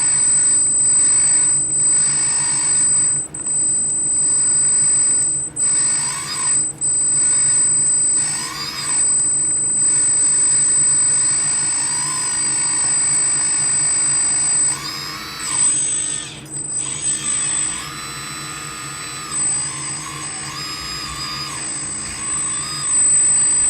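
Radio-controlled construction machine's electric motors and hydraulic pump whining, the pitch rising and falling as the controls are worked, with a high whine that cuts out and returns several times.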